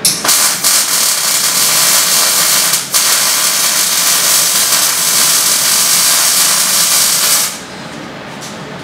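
MIG welding arc from a Bossweld PowerPro inverter welder, a steady sizzling hiss that breaks off briefly about three seconds in and stops about seven and a half seconds in. A very, very smooth welding output.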